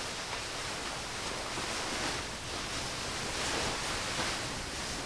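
A towel wiping oil off the skin of a patient's back: a steady rubbing hiss that swells every second or so, cutting off suddenly at the end.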